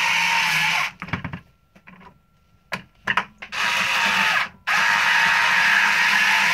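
Cordless electric screwdriver running in bursts as it drives screws home, holding the shower's motor in place. It stops just under a second in, a few clicks follow, and it runs again from about three and a half seconds in.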